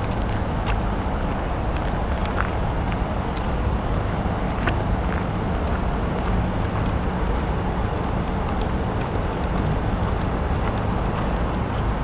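Steady low rumble of city traffic, with a few faint scattered clicks over it.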